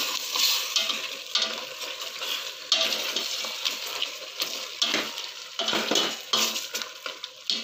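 Chicken and pork pieces in tomato sauce being stirred in a stainless steel pot with a spatula, the spatula scraping and knocking against the pot at irregular moments over a steady sizzle from the pot.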